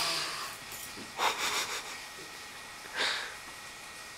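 An animal sniffling and snorting through its nose: a long snort fading at the start, a quick run of short sniffs about a second in, and one more short sniff near three seconds.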